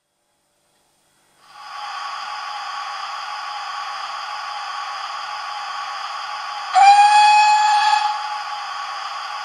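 Hornby TTS sound decoder in a model steam locomotive playing its generic steam sounds through the model's small speaker: a steady steam hiss starts about a second and a half in, and about seven seconds in one whistle blast of about a second sounds over it.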